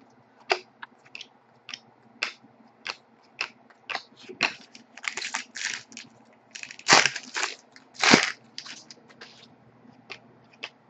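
Trading cards being flipped off a stack one at a time, each giving a short click or snap. There are denser scraping slides about five seconds in and two louder, longer rustles near the end as cards are pushed across one another.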